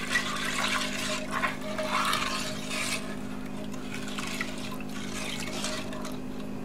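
A metal spoon stirring broth in an enamelled Dutch oven, the liquid swishing and sloshing for about three seconds, then more lightly, over a steady low hum.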